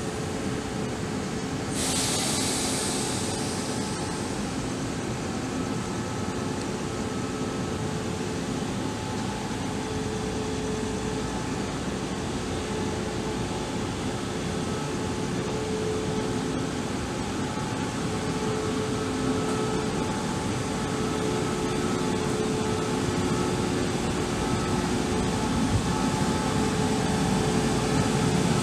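Taiwan Railways train at a station platform, a steady hum with a few faint held whining tones. A brief hiss comes about two seconds in, and the sound grows louder near the end.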